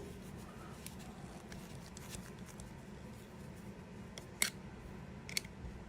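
Faint small metal ticks, then two sharp metal clicks about a second apart near the end, from a screwdriver tip working at the parts of a vintage Craftsman boxhead ratchet.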